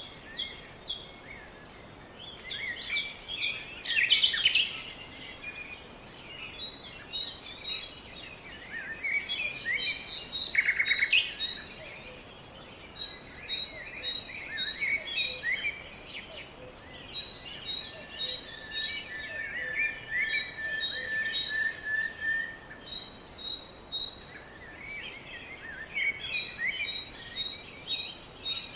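Birds chirping and singing: a busy mix of short calls, quick repeated high notes and trills, with one longer held note in the second half.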